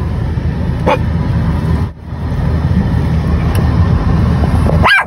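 Chihuahua giving a brief yip about a second in and a sharp, higher yelp near the end, over a steady low rumble.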